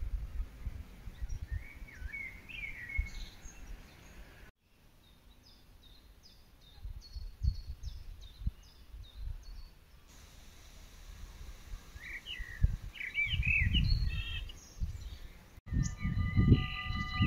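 Small birds chirping and singing over gusts of wind rumbling on the microphone, with two abrupt cuts in the sound. Near the end a chord of several steady held tones begins.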